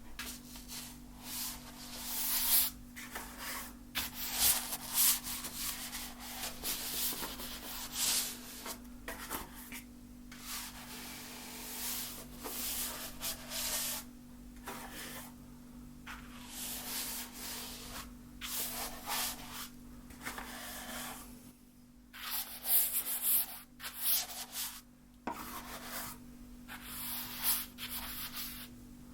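Paint being rubbed and scrubbed onto a canvas in irregular strokes lasting a second or two, with short pauses between them, over a steady low hum.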